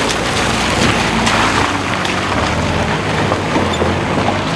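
Small box truck's engine running as it drives slowly through potholes and puddles, with steady tyre and road noise.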